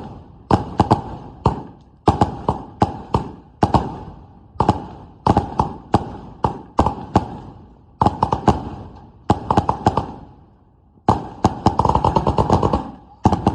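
Consumer firework cake firing its shots: sharp bangs in clusters of two to four about every second, with brief lulls, turning into a rapid barrage of bangs about eleven seconds in.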